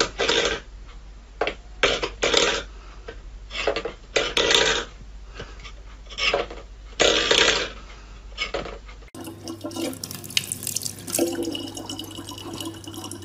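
Short scrapes and clatters of a stainless-steel pet bowl on a wooden floor as a cat paws at it, about eight in the first nine seconds. Then water runs from a faucet into a plastic bottle, over a steady low hum.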